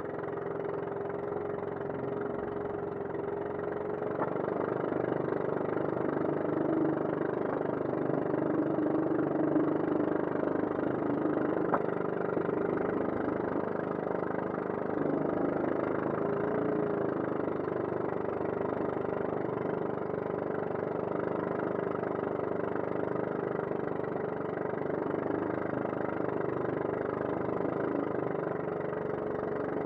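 Engine of a motorized outrigger boat running at a steady speed while under way, a constant drone with water and wind noise around it.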